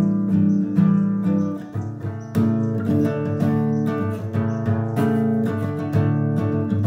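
Background music: a strummed acoustic guitar playing steady chords.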